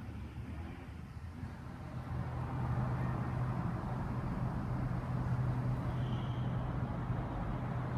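Distant city road traffic: a steady wash of passing cars. About two seconds in, a steady low hum sets in and the sound grows a little louder.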